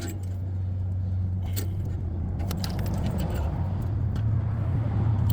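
Scattered light metallic clicks and scrapes from a brake caliper piston compression tool being worked against the caliper, over a steady low hum.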